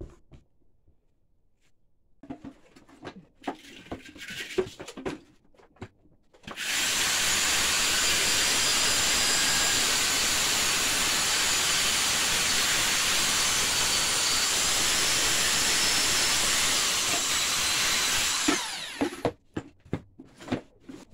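A few light knocks and handling clicks, then a power grinder grinds metal steadily for about twelve seconds, taking shattered metal and paint off the cut edge of a motorcycle fuel tank to ready it for welding. It stops with a falling whine as the disc winds down.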